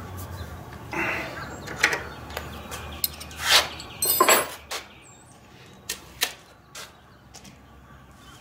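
Clicks and knocks of an allen wrench and a circular saw being handled, loudest in a scraping knock and a rattle about three and a half and four seconds in, then a few sparse single clicks.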